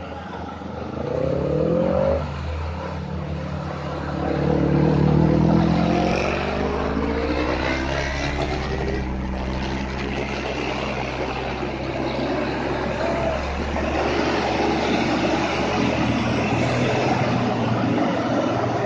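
Heavy diesel box trucks pulling round a tight bend and passing close by, their engines running loud. The engine note rises twice in the first six seconds as they accelerate, then settles into a steady drone with tyre noise.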